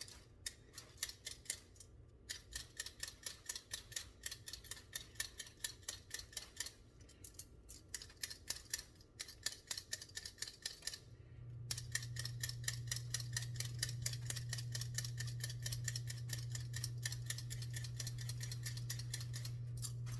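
Potatoes being peeled by hand: quick, repeated scraping strokes, several a second, with short pauses now and then. A little past halfway a steady low hum comes in under the scraping.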